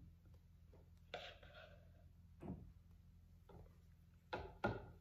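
Spatula scraping thick sea moss gel out of a glass blender jar, with a few short scrapes and knocks against the glass; two sharper taps close together near the end are the loudest.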